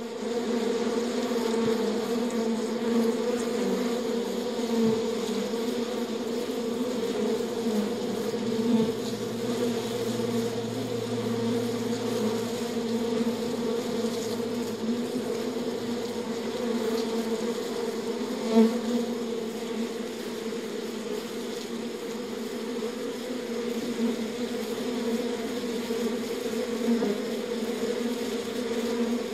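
A beehive full of bees buzzing together: a steady, dense hum. Near two-thirds of the way through there is a brief louder buzz.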